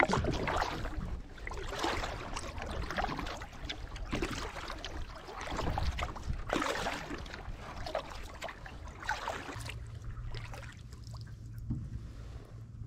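Canoe paddle strokes dipping and splashing, with water washing along the hull, swelling about every two seconds.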